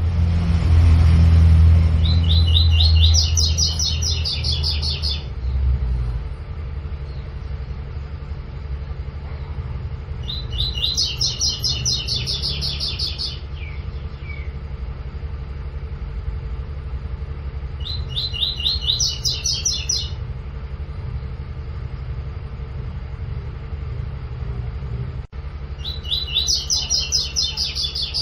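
Double-collared seedeater (coleiro) singing: four phrases, each a fast run of high repeated notes lasting about three seconds, with pauses of about five seconds between them. A steady low rumble runs underneath and is loudest in the first few seconds.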